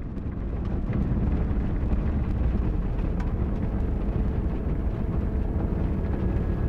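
Four-wheel drive driving on a dirt track, heard from on board: a steady low road-and-engine rumble with scattered small knocks and rattles. It fades in at the start.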